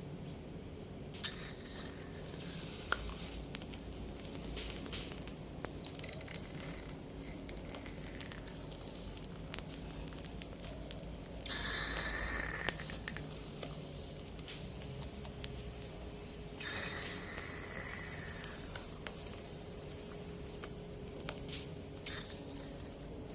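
Aluminum-casting work: stretches of hissing and scraping, the loudest about halfway through, with many scattered clicks and knocks.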